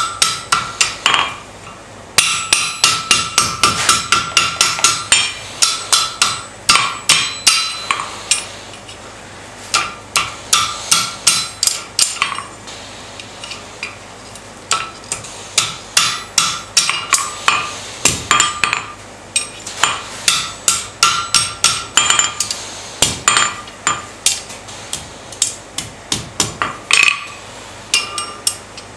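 Hand hammer striking a red-hot rod as it is curled into a ring over a pointed horn stake (bick) on the anvil. The blows come in quick runs of about three a second with short pauses between, and each blow rings with a metallic tone.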